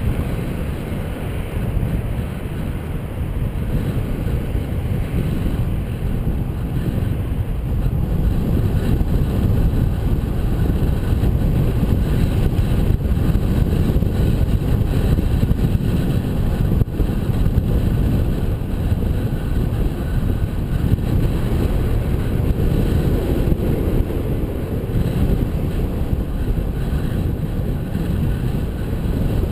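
Wind buffeting the microphone of a camera riding along on a moving bicycle: a steady, loud low rumble, with tyre and road noise mixed in.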